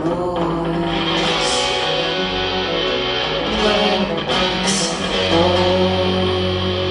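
Live band music with guitar prominent, playing through an instrumental stretch without vocals, over a steady bass line.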